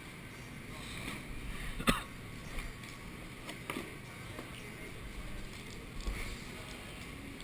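Snowboards sliding on indoor snow, a faint scraping heard through an action camera's housing, with a sharp knock about two seconds in and a few lighter clicks.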